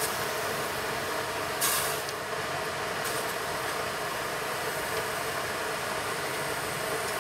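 A steady machine hum, like a small motor running, with a brief hiss about a second and a half in.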